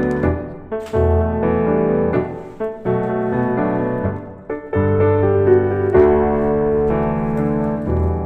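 Background piano music playing soft sustained chords that change about once a second.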